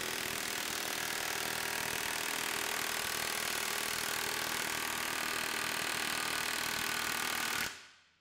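Milwaukee 2867-20 1-inch cordless impact wrench hammering continuously in reverse at maximum torque, a fast steady rattle of hammer blows that stops abruptly near the end.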